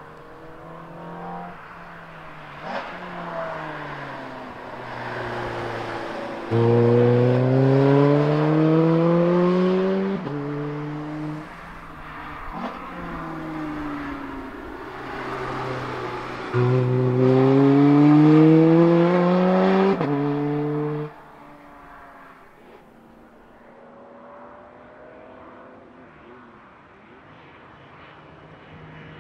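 Ferrari F430's V8 accelerating hard twice, its pitch climbing steeply under full throttle and dropping suddenly at each upshift, with lighter revving in between. A quieter engine sound follows near the end.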